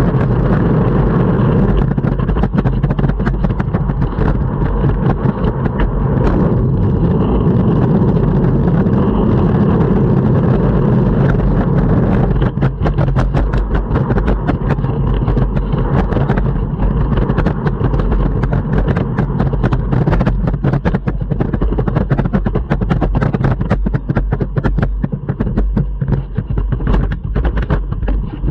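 Longboard rolling over city pavement: a steady, loud rumble from the wheels, broken by frequent irregular clacks.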